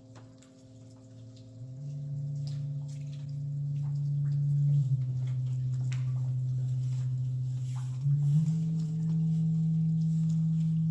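Low electronic drone tone that swells in over the first two seconds and holds steady, stepping up in pitch, then down about five seconds in, then up again about eight seconds in. Faint scattered clicks and drips sound underneath.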